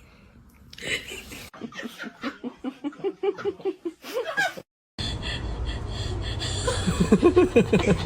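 A person laughing in quick repeated bursts; after a short break about five seconds in, more loud laughing over steady background noise.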